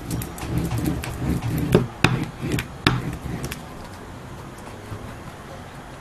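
Bowl of a spoon rubbed back and forth over paper on a cutting mat, burnishing a matte medium transfer to press out air bubbles. The uneven rubbing comes with a few sharp clicks in the first half, then grows quieter.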